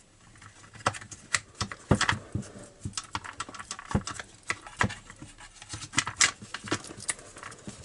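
Irregular plastic clicks and knocks as a chainsaw's plastic cover is pushed and seated back into place over the carburettor by hand.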